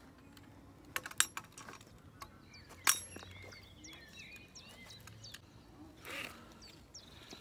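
Small birds chirping, with a few sharp clicks or knocks about a second in and a louder one about three seconds in, and a brief rustle near the end.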